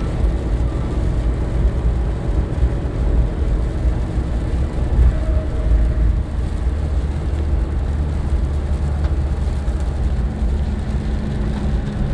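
Steady low rumble of a car's engine and tyres heard from inside the cabin while driving at highway speed.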